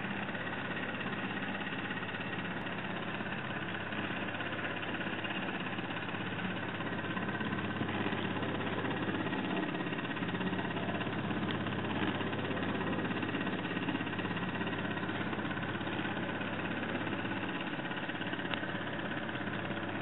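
Steady mechanical hum and whir of a small motor, even throughout, with a constant low drone and no distinct knocks or rhythm.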